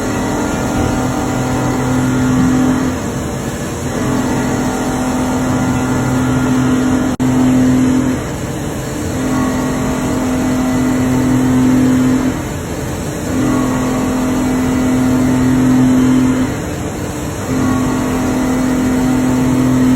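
CNC machine running, a steady motor hum at one fixed pitch that comes and goes in spells of about three seconds with short breaks between them. It drops out abruptly for an instant about seven seconds in.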